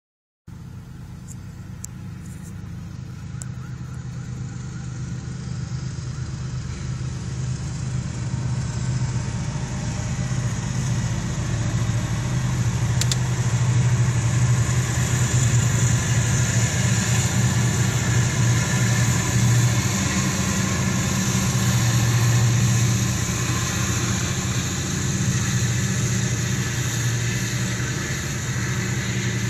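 CSX freight train passing, led by diesel-electric locomotives that the uploader takes for an ES40DC and SD40-2s. Their engines' low drone grows louder over the first dozen seconds as they come by and stays loud, followed by freight cars rolling past with steady wheel-on-rail noise. A single sharp click comes about 13 seconds in.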